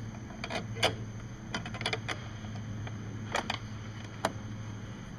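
Recoil starter assembly being set over the engine shroud's mounting studs and shifted about: a scattered series of sharp clicks and knocks, over a steady low hum.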